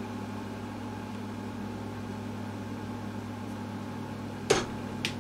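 Steady electric fan hum, with a short sharp knock about four and a half seconds in and a faint click near the end.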